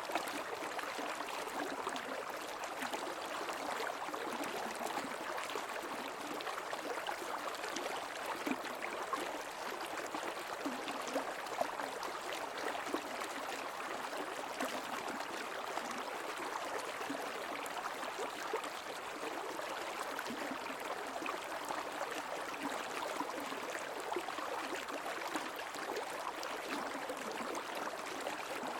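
Shallow creek water flowing and babbling steadily over stones, an even rush with many small splashes.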